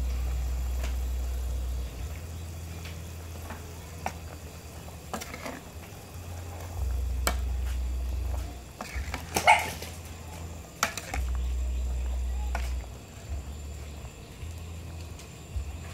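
Metal ladle stirring a pot of boiling soup, knocking and scraping against the aluminium pot in scattered clinks, with one louder clank a little past halfway. A low rumble comes and goes in three stretches underneath.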